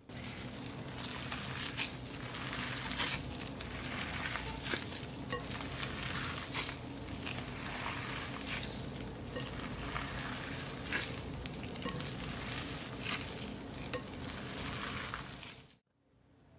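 A hand in a disposable plastic glove kneading raw ground beef in a glass bowl: continuous wet squishing and crackling with frequent sharp clicks, over a low steady hum. It cuts off suddenly near the end.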